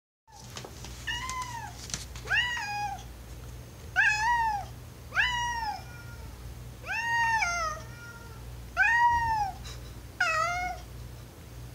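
Tuxedo cat giving seven drawn-out "oww" meows, one every one to two seconds, each rising then falling in pitch. The cat is calling to be let through a closed door to go downstairs.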